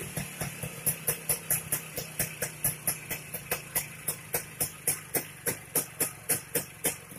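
Classic Vespa's single-cylinder two-stroke engine idling after a service: a steady hum with a sharp tick repeating evenly about four to five times a second.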